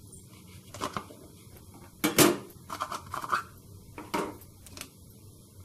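Stainless steel vessel being set down and handled: a few scattered metal knocks and scrapes, the loudest about two seconds in.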